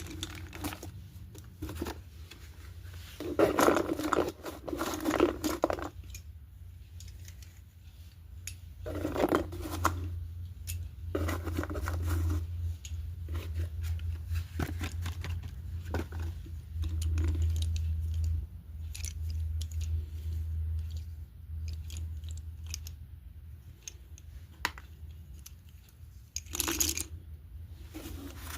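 A pack of red slate pencils being handled: irregular crisp crunches, snaps and tearing sounds, with a few longer crackling stretches. A steady low hum runs underneath.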